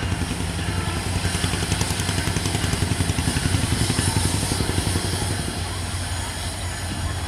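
EMD GT42AC diesel-electric locomotive approaching slowly at the head of its train, its diesel engine giving a steady low drone with a fast throbbing pulse.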